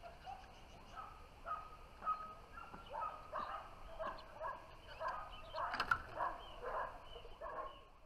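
A dog barking repeatedly, short barks at about two or three a second.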